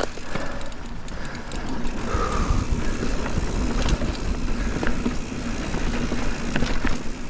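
Mountain bike descending a dry dirt trail at speed: a continuous rush of tyre and ride noise with a heavy low rumble, and scattered light clicks and rattles from the bike over bumps.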